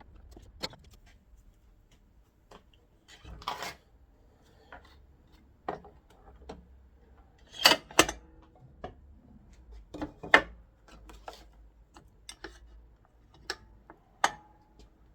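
Scattered clicks, taps and knocks of hand tools and parts being handled while a Milwaukee cordless chop saw is taken apart, with a few louder knocks about 8 and 10 seconds in.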